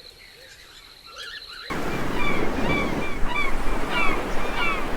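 Birds calling in a flock, many short downward-sliding calls repeated over a loud steady rushing noise that starts abruptly about two seconds in.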